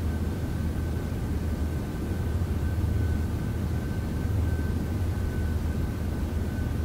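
A steady low hum and rumble with a faint thin high tone held above it, unchanging throughout.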